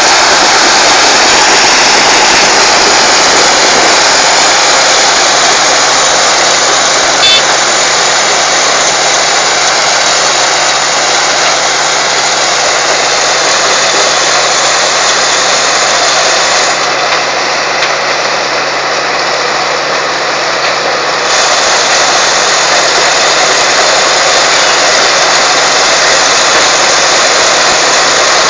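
Sugarcane harvester running: a loud, steady engine and machinery noise that eases off slightly for a few seconds a little past the middle.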